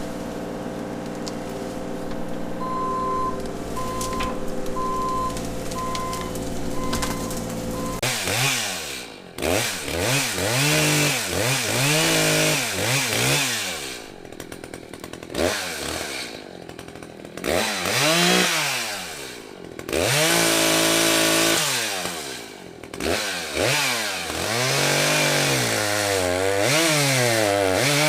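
A chainsaw revving up and down again and again as it cuts through wood, with short dips between cuts. For the first several seconds, before the cutting starts, a steady engine drone runs with a row of short beeps.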